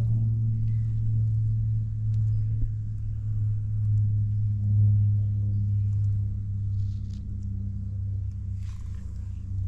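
Suzuki Hi Walter Wolf scooter's single-cylinder two-stroke engine running steadily through a Mihara coiled expansion-chamber exhaust, an even low drone.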